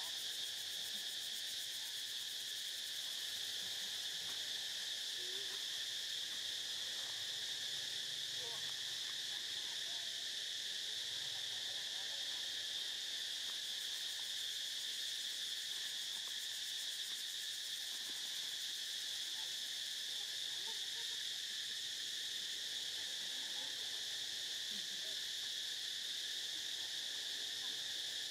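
Steady, high-pitched insect chorus: an even shrill drone with no breaks or changes.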